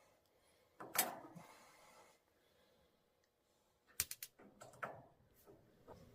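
Sharp clicks and knocks from working the controls of a propane heater while starting it: one loud click about a second in with a short hiss after it, then three quick clicks about four seconds in and a few single clicks after.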